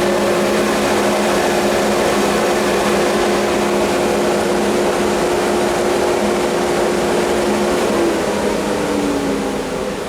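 Woodworking power tool motor running steadily with a whine. About eight seconds in it is switched off, and its pitch falls as it spins down, leaving a quieter steady noise.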